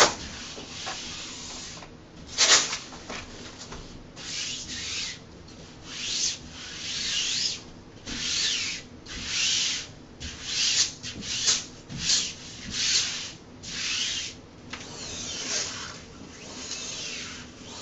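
Repeated hissy rubbing strokes, roughly one a second, as self-adhesive fabric wallcovering is pressed and smoothed onto a wall. One sharper, louder stroke comes about two and a half seconds in.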